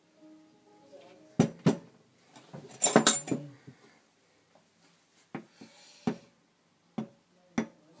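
Clicks and knocks of hard plastic and metal parts being handled and set down: pieces of a dismantled Magnaclean magnetic filter and a metal spanner. There are two knocks about a second and a half in, a short clatter around three seconds, and then a few single knocks spaced out toward the end.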